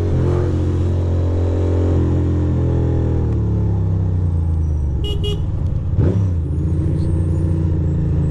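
2006 Ducati Monster 620's air-cooled L-twin engine running under way, its pitch rising and falling as it pulls and eases off. A short horn toot sounds about five seconds in.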